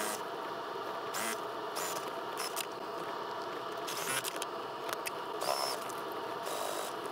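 Quilted fabric being handled at a domestic sewing machine: rustling and irregular light clicks as binding is fed under the presser foot and a sewing clip is handled, with a few short bursts of the machine stitching in the second half.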